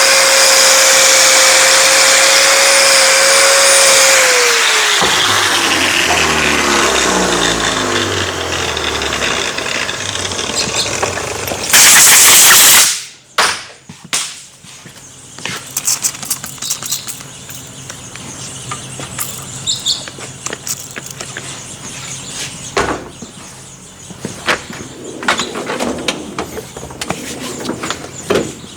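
An electric power tool runs at a steady, loud whine while cleaning crud off a brass gland, then is switched off and winds down over several seconds. About twelve seconds in comes a loud hiss lasting about a second. Light clicks and taps of parts being handled follow.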